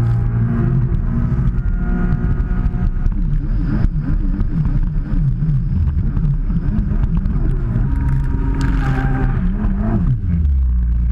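An engine running at varying throttle, its pitch wavering up and down and then falling near the end as it throttles back to a lower, steady note.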